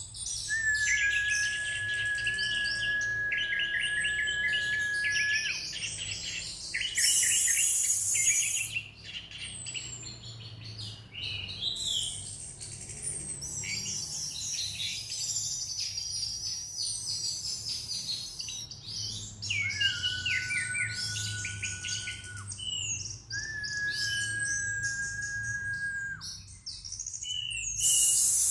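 Orange-headed thrush singing a varied run of chirps and rapid trills, with three long held whistled notes. Two short loud rushing bursts of noise cut in, one about a quarter of the way through and one near the end.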